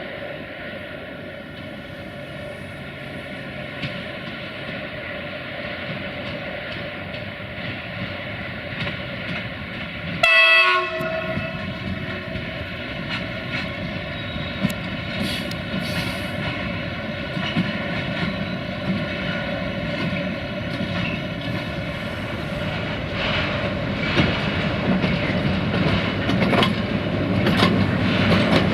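LTE freight train approaching, its locomotive humming steadily, with one short horn blast about ten seconds in. The train grows steadily louder toward the end, wheels clattering over the rail joints.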